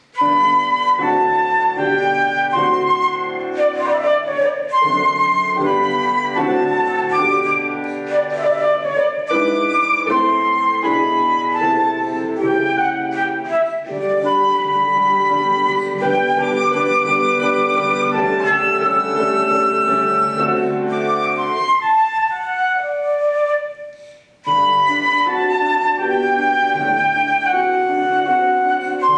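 Flute playing a waltz melody over piano accompaniment. The music thins out and stops for a moment about three-quarters of the way through, then the flute and piano come back in together.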